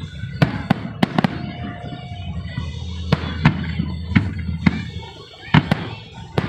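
Aerial fireworks bursting: about a dozen sharp bangs at uneven intervals, with a brief lull around five seconds in.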